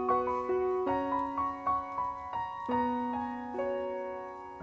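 Piano background music: a gentle, slow melody of single notes over held lower notes, each note fading before the next.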